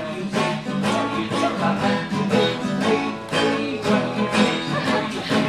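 Guitar strummed in a steady rhythm, about two strums a second.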